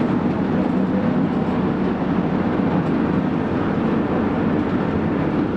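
Small passenger ferry's engine running steadily: a constant low rumble with wash and wind over it.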